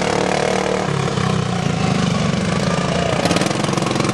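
Racing lawn tractor's engine running steadily as it is driven around the track, its pitch stepping up about a second in.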